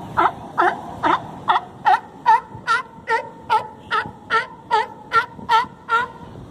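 A California sea lion barking: a quick, even run of short pitched barks, about two and a half a second, that stops shortly before the end. It is begging for fish.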